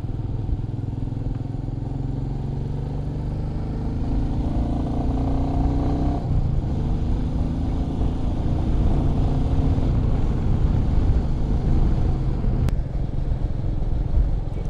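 Royal Enfield Meteor 350's single-cylinder engine running under way. The engine note climbs between about four and six seconds in, then drops and carries on steadily.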